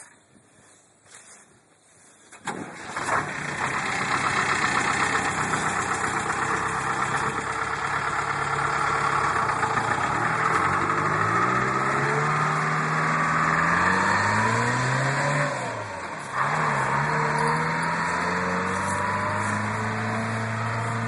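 Detroit Diesel 4-53T two-stroke turbo diesel in a Studebaker pickup starting up suddenly about two and a half seconds in, then running loudly. Its pitch climbs as it revs and pulls away, drops briefly near the end, then holds steady.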